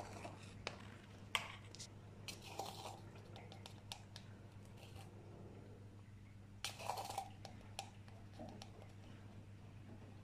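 Faint clicks and scrapes of a small metal measuring spoon scooping baking powder from a tub and tipping it into a plastic bowl of flour, with a louder rustling scrape about seven seconds in. A low steady hum runs underneath.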